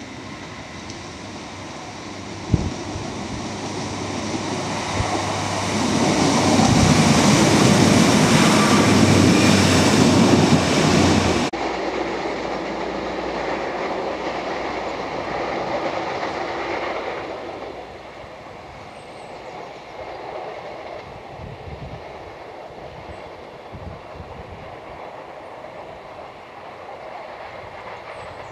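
Diesel multiple unit approaching and passing close below, its engine and wheels on the rails growing louder to a peak, then dropping off sharply and fading as it pulls away into the distance. There is one sharp knock early in the approach.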